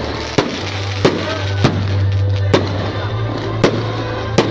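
Fireworks going off: about six sharp bangs at irregular intervals over a steady background din.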